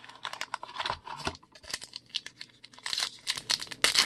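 Foil wrapper of a trading-card pack crinkling as it is handled, a run of small crackles that gets busier about three seconds in.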